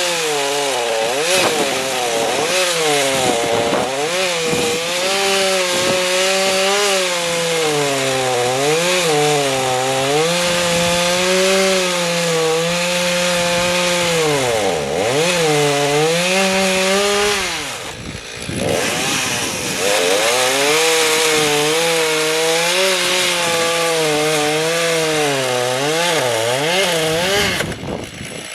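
Chainsaw running at high revs and cutting wood. Its engine pitch sags and recovers over and over as the chain bites under load. It eases off briefly about two-thirds of the way through and again near the end.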